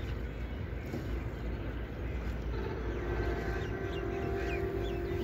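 Outdoor riverside ambience: a steady low rumble with small birds chirping. About two and a half seconds in, a steady droning tone joins.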